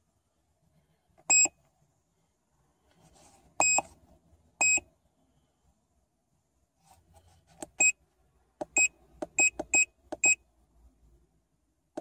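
Keypress beeps from a MaxiDiag Elite OBD2 scan tool as its menus are stepped through and scrolled: short, high single beeps. They are spaced a second or more apart at first, then come in quick runs of several in the second half, with faint handling noise between them.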